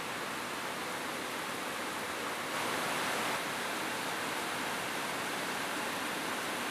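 Steady rain falling on a roof, an even hiss, briefly heavier for under a second about two and a half seconds in.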